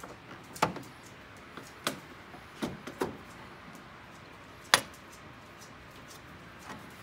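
A handful of sharp clicks and knocks, the loudest a little under five seconds in: a metal headlight-removal key tapping and catching against the plastic trim as it is fitted into the access hole behind a headlight.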